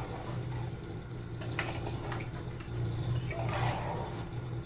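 A spoon stirring and sloshing through a pot of rice and potato chunks in watery broth, with a few light clinks and a rougher stretch of stirring near the end. A steady low hum runs underneath.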